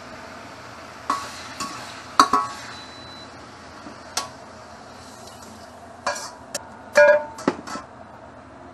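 A metal spatula clanking and scraping against a metal wok and steel cookware, sharp strikes with a short metallic ring, coming in several bursts, the loudest about two seconds in and about seven seconds in.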